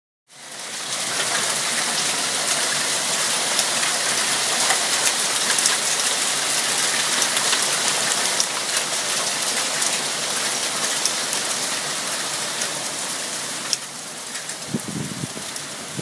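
Small hail mixed with rain pelting a concrete walkway: a dense, steady hiss scattered with sharp ticks of hailstones striking. It starts abruptly just after the beginning; near the end the hiss eases slightly and a brief low rumble comes in.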